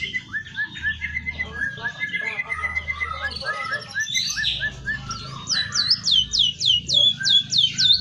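Caged emprit kaji (white-headed munia) singing a busy, varied song filled in with learned canary and white-rumped shama phrases: quick chirps and repeated short notes, then, past halfway, a fast run of high whistles sweeping downward, about four a second.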